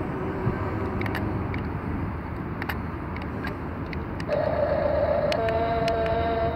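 Small electric motors of a Double E 17-channel RC toy excavator whining as the arm works. One motor tone runs for the first second or so. About four seconds in a higher, louder whine starts and changes pitch about a second later, running on to the end.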